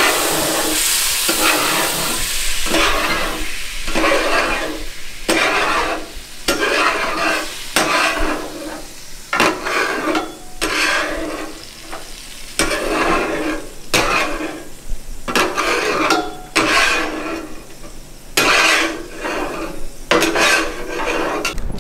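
Metal spatula scraping and flipping on a hot flat-top griddle, in short uneven strokes about a second apart. Under the strokes is the steady sizzle of quail burger patties and buns frying.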